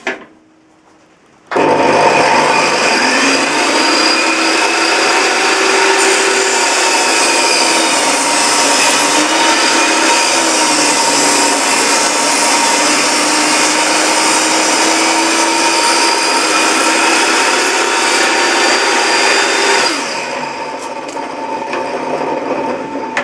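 RYOBI bench circular saw starting suddenly about a second and a half in and ripping a wooden board along the fence, running steadily under load. It gets quieter about three seconds before the end. This is a test cut on a newly made throat plate.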